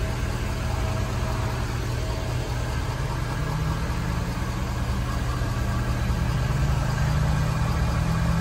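Ford F-350 Super Duty pickup engine idling steadily, heard from beneath the truck beside the exhaust pipe, a little louder near the end.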